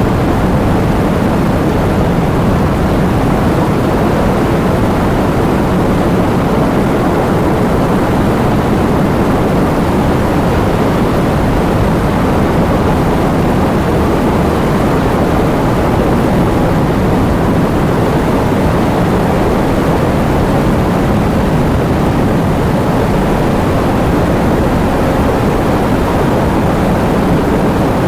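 Heavy rain falling steadily: a dense, even wash of noise weighted toward the low end.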